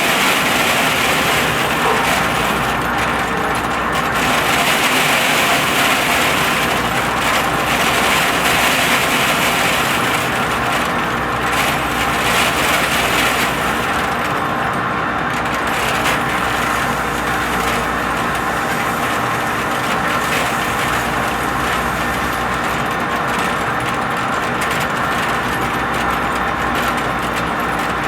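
Large metal lathe running and turning a big pot-bearing part, a steady machine drone with several constant tones. A higher hiss swells and fades a few times in the first half.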